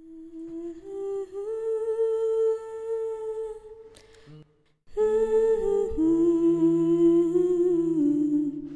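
A voice humming a slow melody in long held notes that step between pitches. It breaks off briefly about four seconds in, and after it resumes a lower hummed line sounds beneath the melody.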